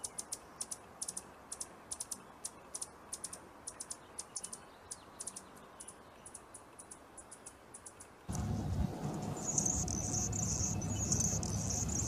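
Hummingbird giving high, sharp ticking chip notes, a few a second at irregular spacing. After about eight seconds the sound cuts to a louder, rougher background, and a high, scratchy buzzing song runs through the last couple of seconds.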